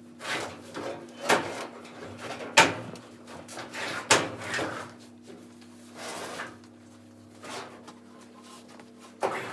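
Handling noise around a gas clothes dryer: a few sharp knocks and clunks, the loudest about two and a half seconds in, over a faint steady hum.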